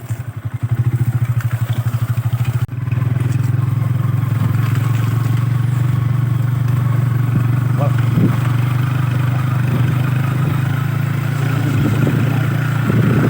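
Motorcycle engine running under way, a steady low drone that pulses rapidly at first and evens out after a brief dip about three seconds in.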